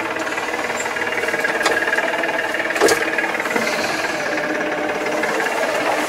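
Massey Ferguson tractor's diesel engine running steadily under way, heard from inside the cab, with rattling and a few sharp clunks, the loudest about three seconds in.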